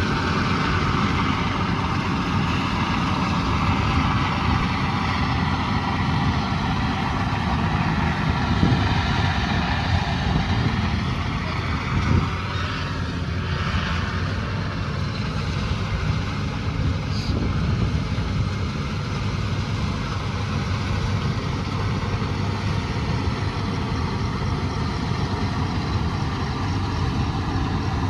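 Heavy farm machine's engine running steadily, with a slight slow drift in pitch.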